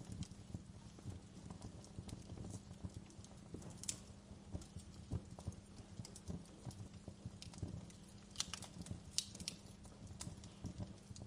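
Fire crackling: irregular sharp pops and snaps over a low steady rumble, with a quick run of louder pops near the end.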